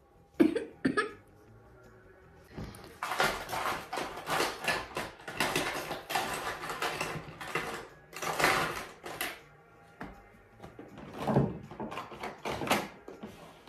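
Makeup products and plastic cases being rummaged through, clattering and rustling in irregular spells, with two short sharp knocks near the start.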